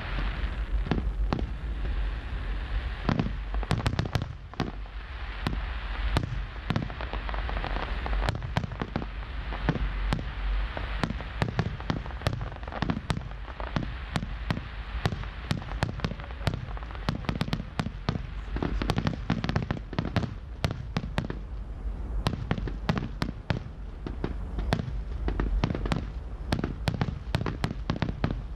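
Aerial firework shells bursting in quick succession during a fireworks display: many sharp bangs, several a second, over a continuous rushing noise.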